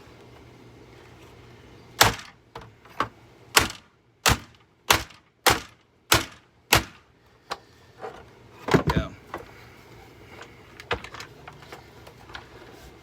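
A hammer striking the housing of a Hoover vacuum cleaner: a run of about a dozen sharp blows at roughly two a second, a quick cluster of hits a little later, then a few fainter knocks.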